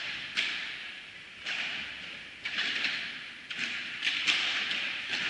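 Padel rally: the ball struck by rackets and bouncing on the court, five sharp hits about a second apart, each echoing in a large indoor hall.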